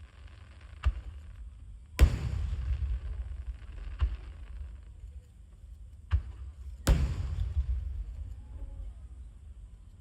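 Aerial firework shells bursting: five sharp booms, the two loudest about two and seven seconds in, each trailing off in a low rumble.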